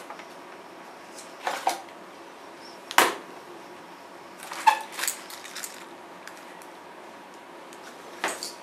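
Plastic packaging bags crinkling and rustling as glass-fibre helicopter fuselage parts are handled, with one sharp knock about three seconds in and a short cluster of light clicks and clatters a second or two later.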